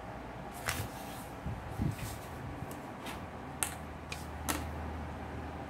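A sheet of paper folded and pressed flat by hand on a cutting mat, with soft rustles, then a clear acrylic ruler picked up and set down on it, giving a few light taps.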